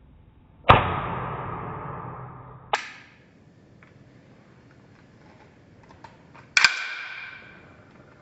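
Cybergun (KWC) Colt 1911 A1 CO2 gas-blowback airsoft pistol fired twice, about six seconds apart. Each shot is a sharp crack of the slide blowing back, with a tail that fades over a second or two, and there is a lighter click between them.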